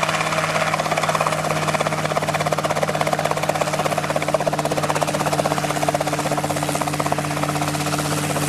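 Homemade single-seat ultralight helicopter hovering low, its engine and rotors running steadily: an even, fast pulsing over a steady hum.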